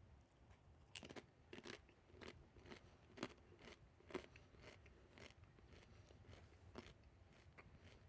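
A person chewing the Reaper One Chip Challenge chip, a crisp spiced with Carolina Reaper pepper. It makes quiet, irregular crunches that start about a second in, with the sharpest bites near the start and middle.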